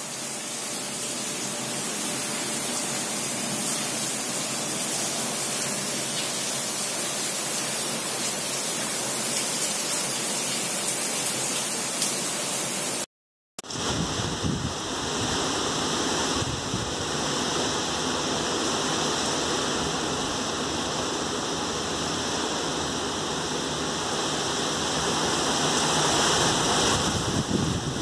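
Heavy rain pouring steadily, a dense hiss, with strong wind gusting through the second half. The sound drops out briefly about 13 seconds in and grows louder near the end.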